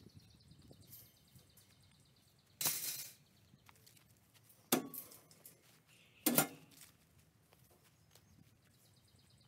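Wire fencing clinking and rattling as it is handled: a short rattle about two and a half seconds in, then two sharp metallic clinks about a second and a half apart.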